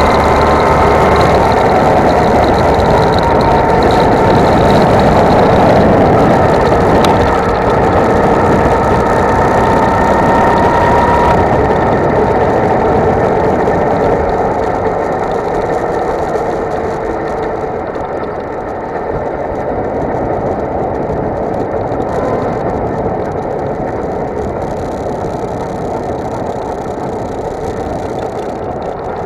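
Go-kart engine running at speed, heard close up with a rushing noise over it. Its whine rises slightly for the first eleven seconds or so, then stops abruptly and the sound drops to a lower, quieter run as the kart slows.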